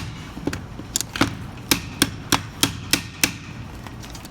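Repeated hammer blows on a part of a disassembled angle grinder: about ten sharp strikes at roughly three a second, after a short pause near the start.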